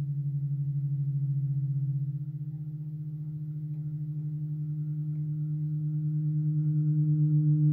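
Halldorophone feedback drone: the sustained D-string and a sympathetic string sound at nearly the same low pitch and interfere, beating in a fast even pulse. The pulsing slows and the tone swells louder in the last few seconds as the two string pitches are bent.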